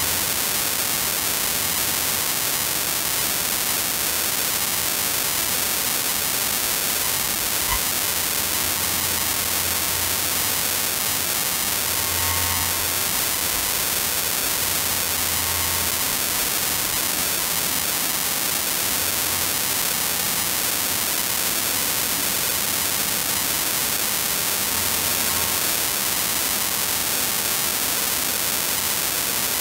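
Steady, fairly loud hiss with a low hum that swells and fades several times.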